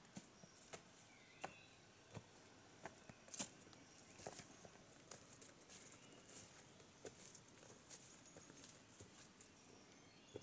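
Faint footsteps crunching and rustling through dry leaves, twigs and undergrowth on a forest trail: irregular small snaps and crackles, the sharpest about three and a half seconds in.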